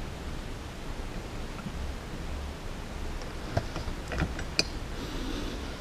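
Steady background hiss, with a few light clicks and taps of small parts being handled on the workbench about three and a half to four and a half seconds in.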